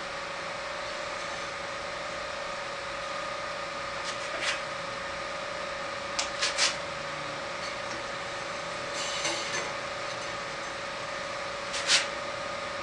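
Light clicks and taps from hands turning the upper wheel of a Craftsman 103-24250 bandsaw and touching its blade while checking the blade's tracking, over a steady background hum. There is a small cluster of clicks about six seconds in, a brief scratchy rustle around nine seconds, and a sharper click near the end.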